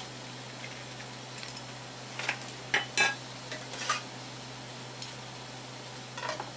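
A metal ladle clinking against the side of a metal saucepan while miso is worked into a shrimp-head broth: a few short sharp clinks about two to four seconds in and again near the end, over a steady low hum.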